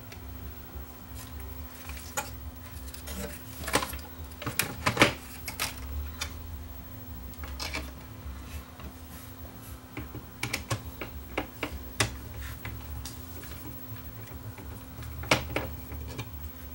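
Irregular clicks and knocks of a CD player mechanism's plastic and sheet-metal parts being handled and seated back into a stereo chassis, the loudest few about four to five seconds in, over a faint steady hum.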